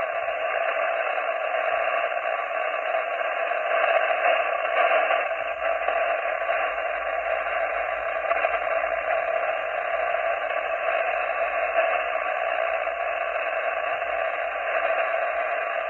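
Amateur radio transceiver's receiver hissing steadily with band noise from the speaker while listening for replies to a voice CQ call, with no station coming through. The hiss is cut off sharply at the band edges, thin in the bass and treble.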